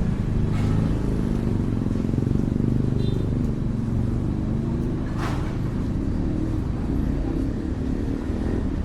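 Steady low rumble of road traffic, with one brief sharp sound about five seconds in.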